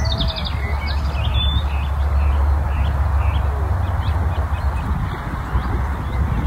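Wild birds chirping and calling, with a rapid trill about half a second in and scattered short chirps after, over a steady low rumble.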